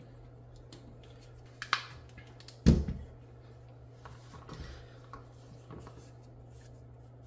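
Tools and parts being handled on a silicone work mat: scattered light clicks and taps, with one sharp knock at about a second and a half and a heavier thud at about two and a half seconds, over a steady low hum.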